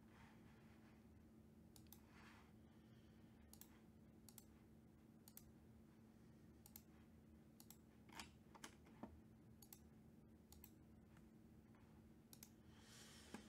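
Near silence: a low steady hum of room tone with scattered faint, sharp clicks, a few slightly louder around the middle.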